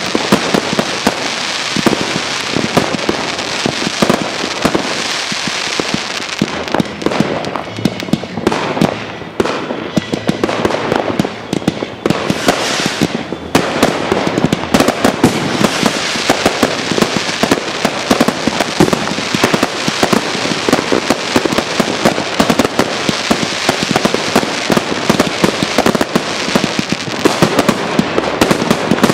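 New Year's Eve fireworks and firecrackers going off in a dense, continuous barrage of overlapping bangs and crackles. The barrage thins a little about a third of the way through, then thickens again.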